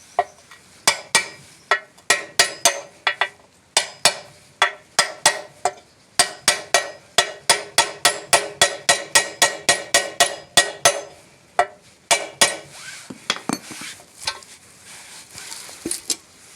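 Hammer blows on metal, each with a short metallic ring, driving a new bearing into a mini rice mill / flour mill. The blows come singly at first, then settle into a steady run of about four a second, and thin out near the end.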